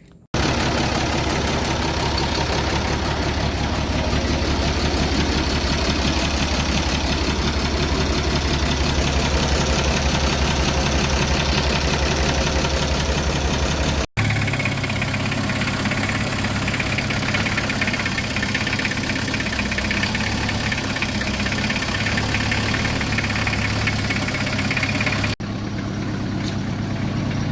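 The diesel engine of a palm-oil lorry idling with an even, rapid throb, running again after repair work. The sound breaks off abruptly twice, where clips are joined.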